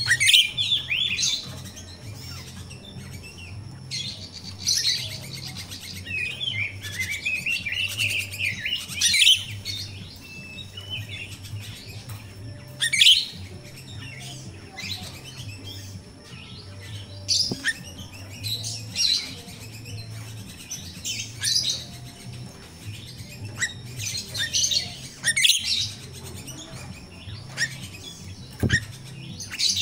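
Grosbeak starling (finch-billed myna) calling: short shrill chirps in bursts every few seconds, with a longer run of wavering squeaky calls about five to nine seconds in.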